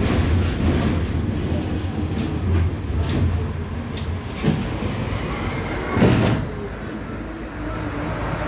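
Inside a V3A-93-M tram slowing to a stop: the low running hum fades over the first few seconds, a brief loud noise comes about six seconds in as it halts, and then the standing tram gives a quieter steady hum.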